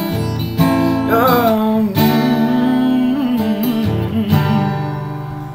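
Acoustic guitar strumming the closing chords of a song. The last chord, strummed about four seconds in, rings out and fades.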